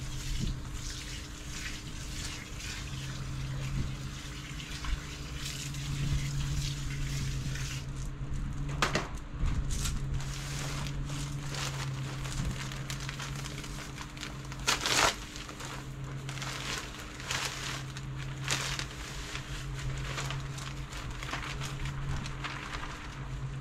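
Water spraying from a garden hose wand into a terracotta pot for the first several seconds, then the crinkling of a plastic potting-mix bag and soil pouring into the pot, in short uneven rustles. A steady hum runs underneath.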